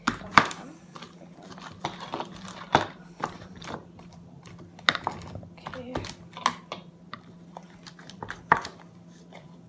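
Freshly activated slime being worked by hand, giving off irregular sticky clicks and wet pops, the sharpest one just after the start. A faint steady low hum runs underneath.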